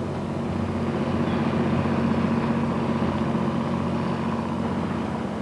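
A fishing boat's inboard engine running steadily at speed, with water rushing along the hull; it grows a little louder through the middle and eases off slightly near the end.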